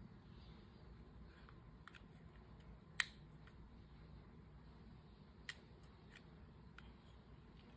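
Plastic slider of an ADATA UC300 retractable USB-C flash drive clicking into its stops: a sharp click about three seconds in as the connector is pushed out, and a softer click a couple of seconds later as it is drawn back in, with a few faint handling ticks around them.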